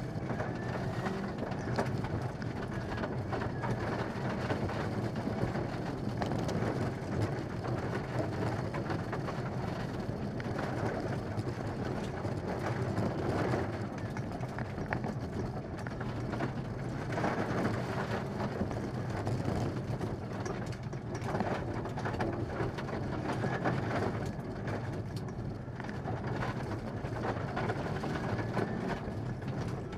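In-car sound of a Mitsubishi Lancer Evolution VI rally car driven hard on a gravel stage: its turbocharged four-cylinder engine running under load, with loose gravel pattering and rattling against the underbody.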